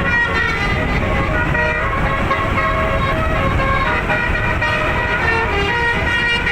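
Bus's telolet basuri musical air horn playing a tune of held notes that step up and down in pitch, over a steady low rumble.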